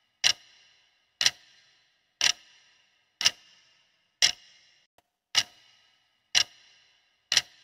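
Clock-tick sound effect counting down the answer time of a quiz timer: eight sharp ticks, one a second, each with a short ringing tail.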